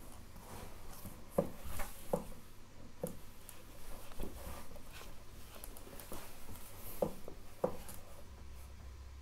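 A Bengal cat scrabbling and rubbing against a cardboard box on a wooden floor: irregular scratching and rustling, with several short soft knocks as it bumps the cardboard.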